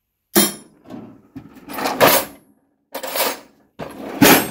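Metal tool chest drawers sliding and steel spanners and sockets clattering as someone rummages through them, in several separate bursts with the loudest clatter near the end.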